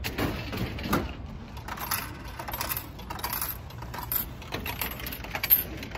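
Coins clinking as they are taken from a coin purse and fed into a drink vending machine: a string of small metallic clicks and rattles, the sharpest one near the end.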